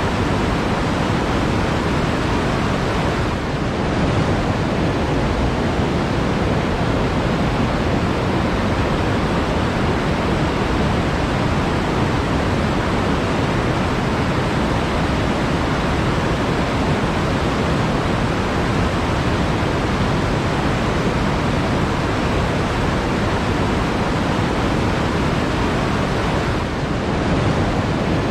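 Flowing water rushing steadily, a dense, even wash of sound.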